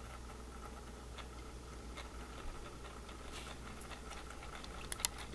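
Faint steady hum of a small motorized display turntable slowly turning, with a few light ticks and two sharper clicks near the end.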